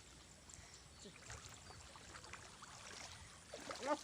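Faint sloshing and small splashes of shallow muddy water. Near the end a person's voice starts calling out.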